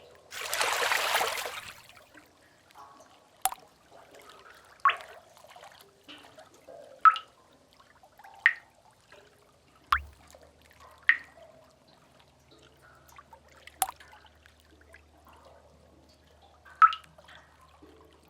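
Water drops falling one at a time into a pool in a cave, a plop every one to three seconds, about eight in all. It opens with a brief splash of water that swells and fades over about two seconds.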